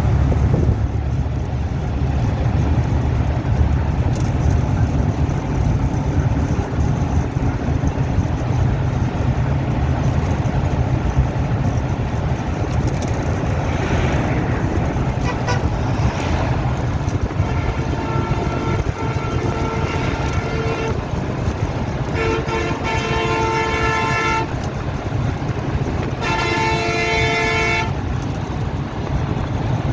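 Steady low engine rumble with wind noise, and three long horn blasts in the second half: the first about three seconds long, the next two shorter.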